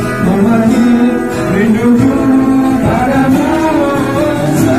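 Live acoustic guitar playing with a man singing into a microphone over it.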